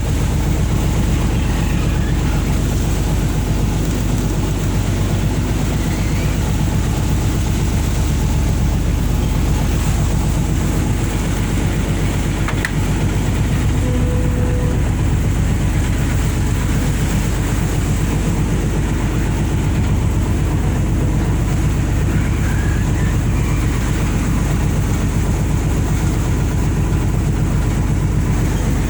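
A boat's engine running steadily, a constant low drone with a fast even pulse.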